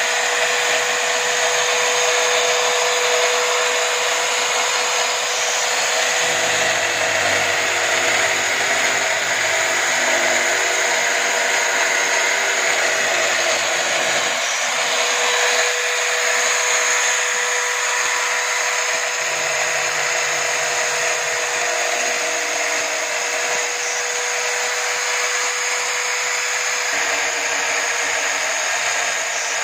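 Electric drill clamped in a drill stand and driving a homemade sanding drum, its motor running steadily with a constant whine and hiss. A lower hum joins twice, for several seconds each time.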